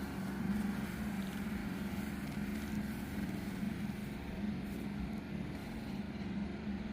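A motor engine running steadily with a constant low hum.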